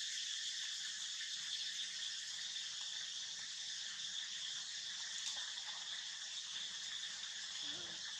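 Steady, high-pitched chorus of forest insects, an even continuous drone.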